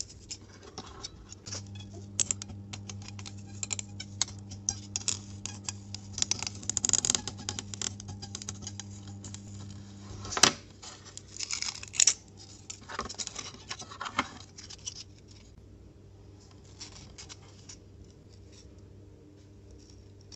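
Hands handling carved XPS foam pieces and thin wooden templates: irregular scratchy rubbing with light clicks and taps, and two sharper knocks about ten and twelve seconds in, over a steady low hum.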